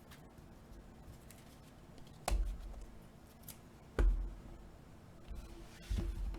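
Trading cards and card supplies being handled on a table, with three sharp taps or knocks about two seconds apart.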